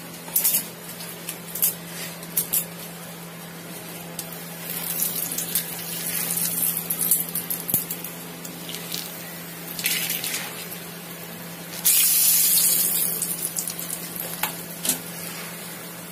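Whole spices and bay leaves sizzling in hot oil in a kadai for a tempering. The sizzle comes in waves and turns loudest about twelve seconds in, when more whole spices go into the oil, with a few sharp clicks of handling near the start.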